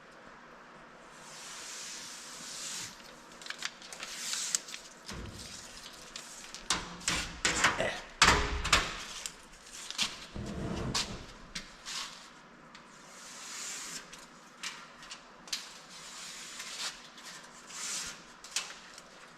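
Hands working on sheet-metal truck body parts: irregular knocks, clicks and clunks, busiest and loudest about eight to eleven seconds in, between soft rustling swells.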